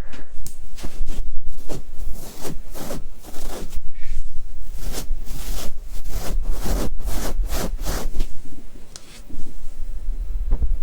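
Ear-cleaning ASMR tools rubbing and scraping right on a microphone, in repeated short strokes about two a second.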